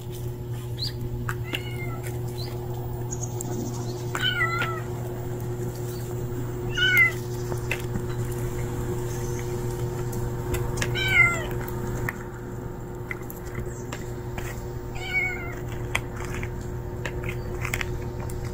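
Domestic cat meowing, about five short calls several seconds apart, the loudest a little past the middle, over a steady low hum.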